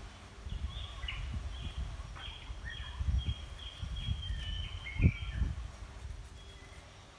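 Birds chirping in a run of short, high, falling notes over the first five seconds or so, over a low rumble with thumps, the loudest thump about five seconds in.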